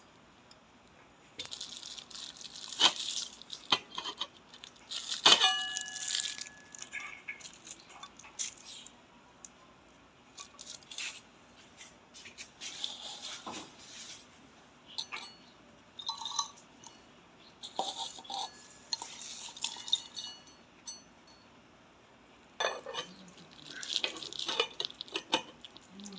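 Irregular clinks, taps and scrapes of hard parts being handled, with one short metallic ring about five seconds in; no motor is running.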